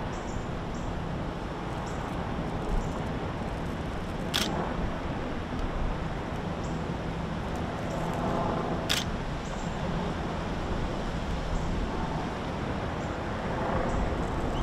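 Lava fountain erupting from Kīlauea's Fissure 8 vent, a steady deep rushing noise, with two sharp cracks about four and nine seconds in.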